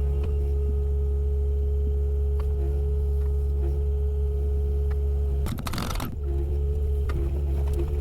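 Kubota mini excavator's diesel engine running steadily, heard from inside the cab, with a steady whine over the low drone. A short clattering burst comes a little over halfway through.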